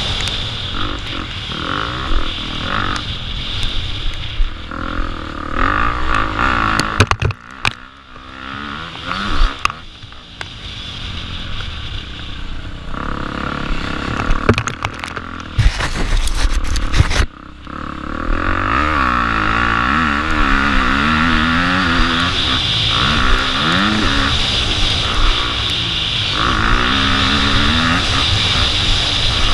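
Dirt bike engine revving up and down repeatedly through the gears, heard from a helmet-mounted camera. It eases off and quietens for several seconds about a quarter of the way in, and there are loud rushing bursts of noise just past the middle before the engine pulls hard again.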